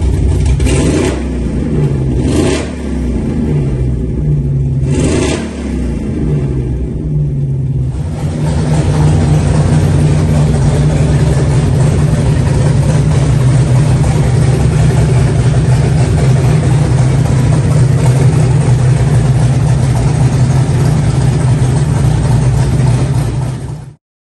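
Classic Ford Mustang's V8 engine and exhaust running, blipped three times in the first six seconds, then held at a steady, louder run. It cuts off suddenly near the end.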